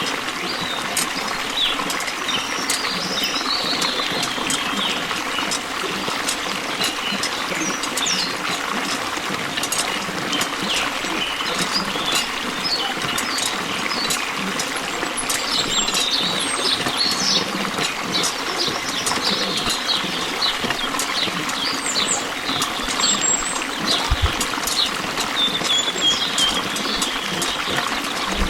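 Birds chirping over a steady rush of flowing water.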